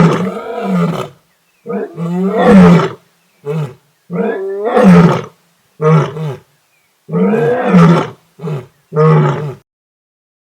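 Lion roaring: a run of about eight deep calls, some a second or so long and others short, grunt-like, with brief silences between them, stopping near the end.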